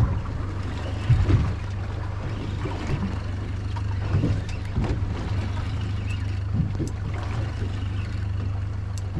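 Boat engine idling with a steady low hum, with a couple of knocks about a second in.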